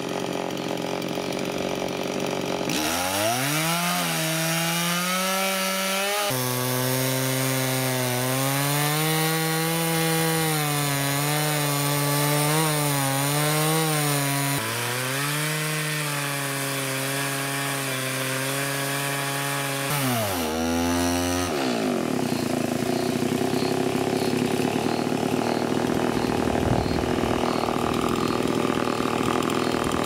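Two-stroke chainsaw cross-cutting through a standing round-timber post. The engine revs up a few seconds in and holds high under load, its pitch sagging and recovering as the chain bites. It drops away about two-thirds of the way through, and a rough sawing noise with no clear pitch carries on after that.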